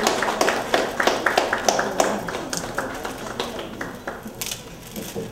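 A small group clapping by hand, the applause thinning out and dying away about four seconds in.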